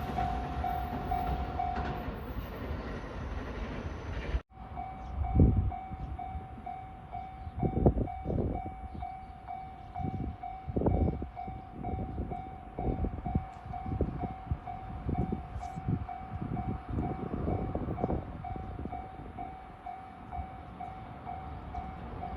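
Japanese level-crossing warning bell ringing: a steady electronic ding repeating about twice a second, breaking off briefly about four seconds in. Under it a train rumbles past, with irregular heavy wheel thumps.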